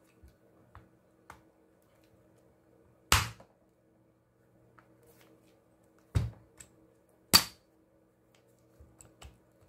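Hard plastic housing parts of a Milwaukee M18 drill knocking and clicking together as they are handled and fitted. There are three sharp knocks, one about three seconds in and two more about six and seven seconds in, among lighter clicks.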